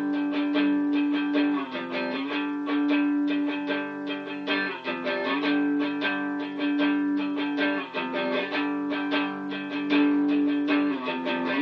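Guitar strumming a steady, rhythmic chord pattern, the chords changing about every three seconds: the instrumental close of a rough home-demo song.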